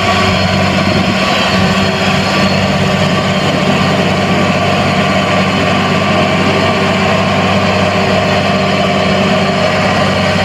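Truck engine idling steadily with a constant low hum.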